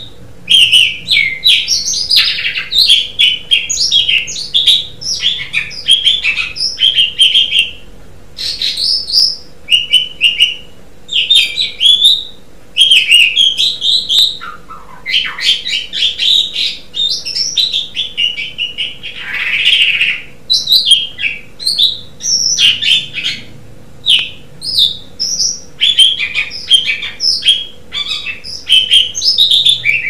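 Asian pied starling (jalak suren) singing loudly in full song: quick phrases of varied chirps, whistles and harsh notes with short pauses between them, and one longer rasping note about two-thirds of the way through.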